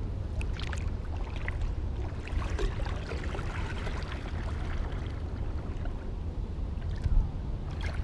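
Kayak paddling through still flood water: small splashes and water trickling and dripping off the paddle blade, over a steady low rumble.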